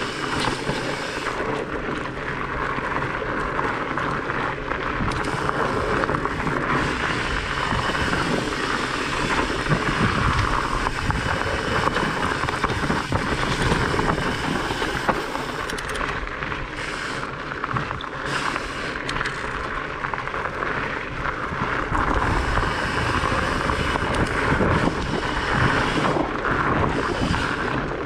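Trek Farley 9.6 fat bike's wide tyres rumbling over a dirt and gravel forest trail, a steady rushing noise broken by frequent small knocks and rattles from the bike, with wind noise on the microphone.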